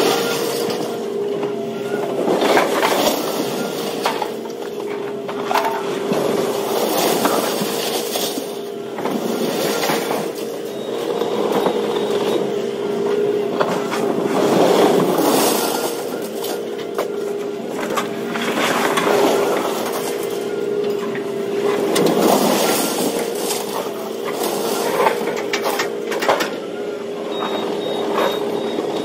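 Scrap metal being dragged and dropped off a trailer: repeated scraping and clattering swells, each about a second long, over a steady engine hum.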